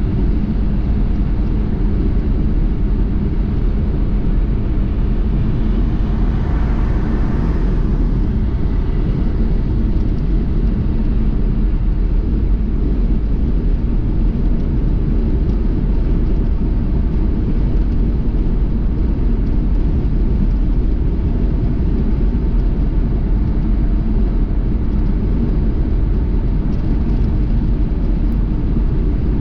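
Steady low rumble of a car on the road, with a brief brighter swell about seven seconds in.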